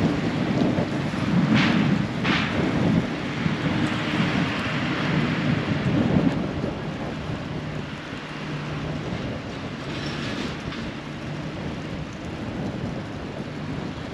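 Street noise: a steady low rumble, louder in the first half and easing after about seven seconds, with a faint steady hum through the middle.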